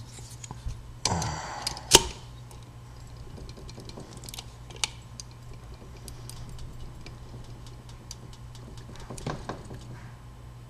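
Metal key blank in vise grips clicking into a wafer padlock's keyway, two sharp clicks in the first two seconds, then light irregular ticking as the key is worked against the wafers to raise impression marks.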